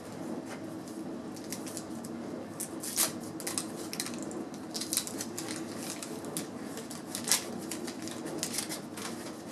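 Wax paper wrapper of a 1988 Fleer baseball card pack being torn open and crinkled by hand: a run of sharp, irregular crackles, loudest about three seconds in and again just after seven seconds.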